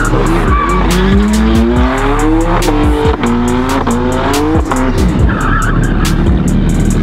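BMW M4 doing donuts with its rear tyres spinning and squealing, the engine revs climbing and dropping back again and again, over background music with a steady beat.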